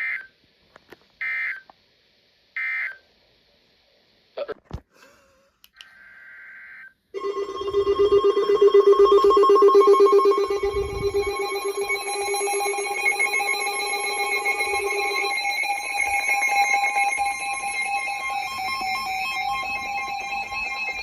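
NOAA Weather Radio EAS data bursts: three short end-of-message squawks about a second and a half apart, then a longer data burst. About seven seconds in, a loud, steady alert tone starts, which signals that a new warning is about to be read; partway through, its lower pitch drops out.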